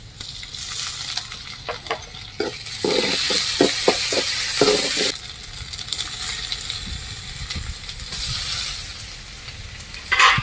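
Onions and green chillies frying in oil in a metal kadai, sizzling up just after the start as a handful of paste is dropped in, then chopped tomatoes. A run of sharp knocks sounds in the middle, with a sharper clatter at the very end.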